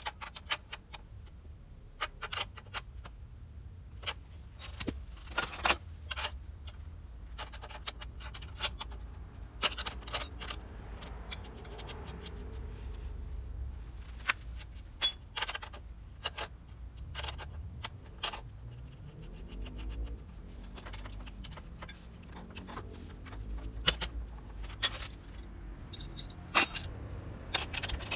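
Irregular metallic clinks and clicks of tools and metal parts being handled during motorcycle rear-wheel work, a few of them sharp and loud. A faint rising whir comes about two-thirds of the way through.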